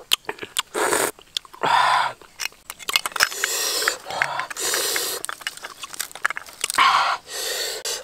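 A person eating raw oyster, with a series of loud slurps and sucking breaths through the mouth and small wet clicks in between.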